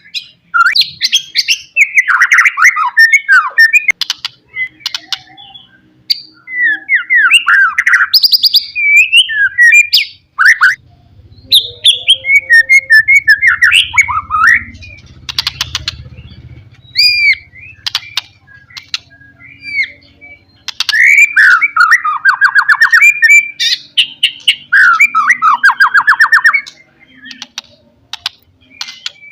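White-rumped shama (murai batu) singing a loud, persistent, challenging song: rapid varied phrases of rising and falling whistles, fast trills and sharp clicking notes in bursts with short gaps, the kind of song used to provoke rival shamas into singing.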